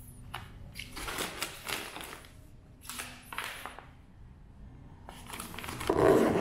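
Vacuum-sealed plastic meat packs crinkling and rustling in short bursts as they are handled in a soft cooler bag, then the cooler's zipper pulled closed, the loudest sound, near the end.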